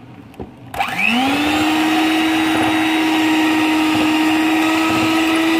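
Electric hand mixer switched on about a second in, its motor whine rising quickly to speed and then running steadily as the beaters whisk egg batter in a bowl.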